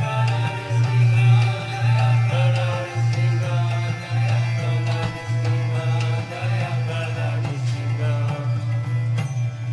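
Music with a strong, steady bass line and a melody over it.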